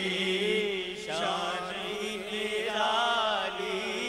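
Voices singing the drawn-out melody of an Urdu naat (devotional song), over a steady low drone.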